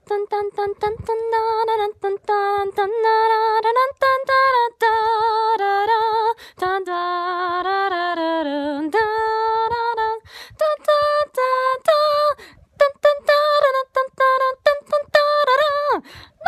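A woman vocalising in a high, wordless singing voice, mostly in short choppy notes. Around the middle she holds a longer wavering stretch, and near the end the pitch swoops sharply down.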